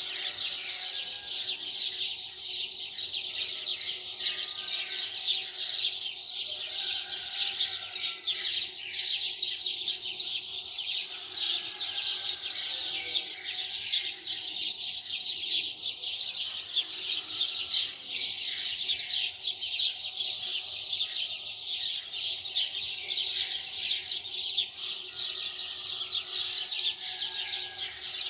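Many small birds chirping in a dense, continuous chorus of short, high notes.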